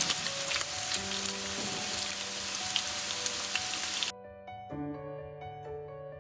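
Chicken sizzling as it fries in oil in a pan, over soft background music. About four seconds in, the sizzle cuts off suddenly, leaving only the music.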